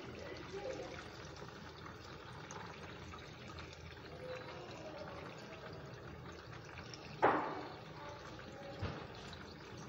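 Hot oil sizzling and bubbling steadily around samosas deep-frying in a pan. A sharp clack about seven seconds in and a softer knock a second and a half later, as the metal tongs turn them.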